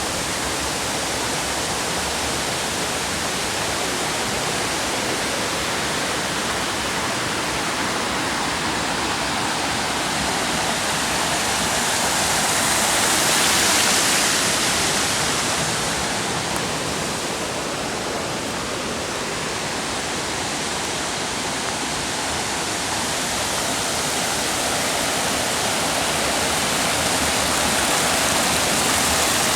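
Waterfall: a steady rush of falling water, swelling a little louder and brighter about halfway through.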